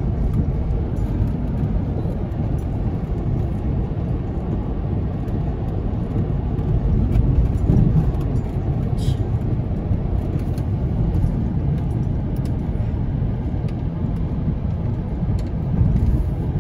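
Road noise inside a moving car on a bumpy street: a steady low rumble of tyres and engine, swelling a little about eight seconds in and again near the end.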